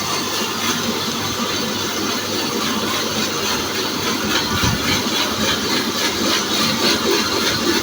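Horizontal band sawmill running steadily, its blade sawing through a mahogany log.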